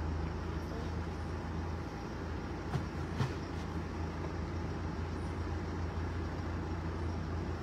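Steady low rumble of a car's engine and road noise heard inside the cabin while driving, with two brief clicks about three seconds in.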